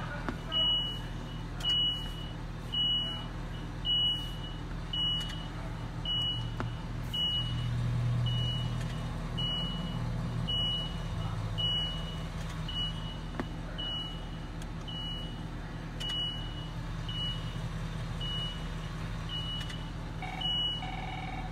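Ambulance backup alarm beeping steadily, one high single-pitched beep about every second, over the steady idle of the ambulance's engine. A second, lower tone joins briefly near the end.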